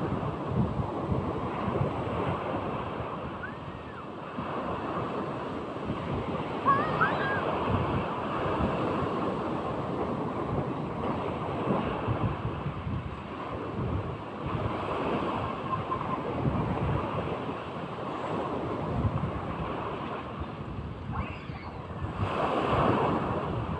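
Sea waves breaking and washing in, with wind buffeting the microphone; the surf swells louder again near the end.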